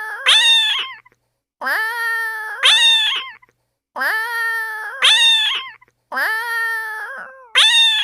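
Cat meowing: the same pair of meows, a lower one followed at once by a higher, louder one, repeats four times with dead silence between each pair.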